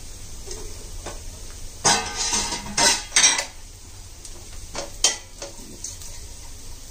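Metal utensil scraping and clinking against a stainless steel pot while stirring garlic and cumin tempering in hot mustard oil, loudest in a run of scrapes from about two to three and a half seconds in, with a few lighter clinks later.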